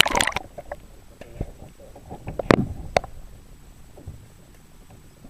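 Water sloshing and splashing as a camera goes under the surface, then the muffled knocks and low rumble of sound heard underwater, with the loudest sharp knock about two and a half seconds in.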